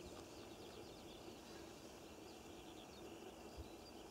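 Near silence with faint bird chirps: quick runs of short falling notes over a quiet open-air hiss, and one soft low bump about three and a half seconds in.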